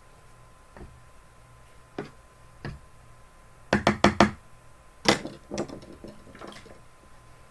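A series of sharp knocks: three single ones, then a quick cluster of four about halfway through, a strong one just after, and a few lighter ones near the end.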